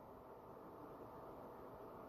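Near silence: only faint low hiss.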